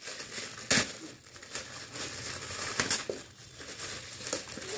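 Gift wrapping being torn open and crumpled by hand: an uneven run of rustling and crinkling, with two sharp, louder crackles about a second in and about three seconds in.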